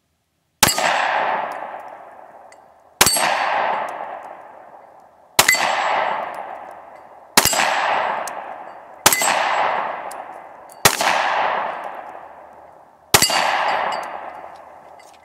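Seven 9mm pistol shots from a Smith & Wesson M&P Shield, about two seconds apart. Each shot is followed by a long metallic ring from a steel target being hit.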